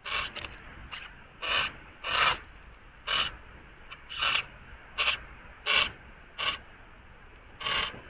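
A Eurasian jay with a dead mouse at a wooden feeder tray making about ten short, harsh rasping sounds at uneven intervals.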